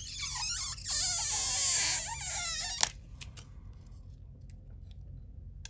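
Battery adhesive strip or liner being pulled and peeled, a squeaky, scratchy high-pitched stretching sound for about three seconds that stops abruptly, followed by a few faint clicks.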